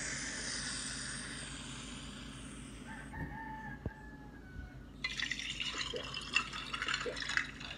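Virtual-drink app's liquid sound effects from a tablet speaker: a fizzing hiss that fades away, then, about five seconds in, bubbling, dripping drink sounds as the tablet is tipped up to be drunk from.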